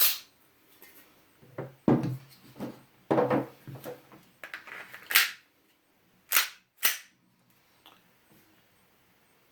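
Propane-powered gas-blowback airsoft replica of a Smith & Wesson M&P 9c pistol firing 6 mm BBs: sharp cracks of shots with its slide cycling, at the very start and then a few more several seconds later, with knocks and rattles of handling between.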